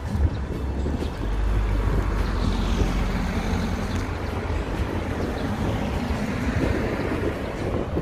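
Wind buffeting a handheld camera's microphone outdoors, a continuous deep rumble with a wider hiss that gets heavier about a second in.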